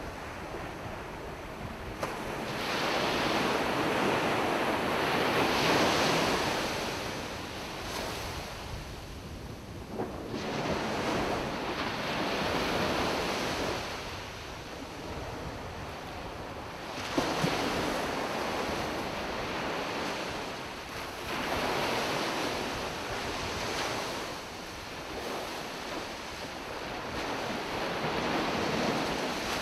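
Ocean surf on the beach: five waves in about thirty seconds, each breaking with a sudden rush and then washing out and fading before the next.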